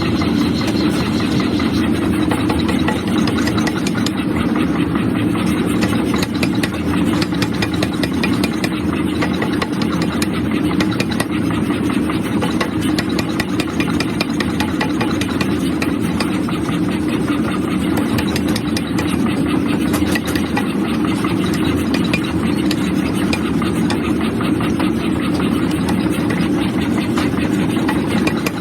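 Forging machinery running steadily, a continuous mechanical drone with a dense, rapid clatter over it.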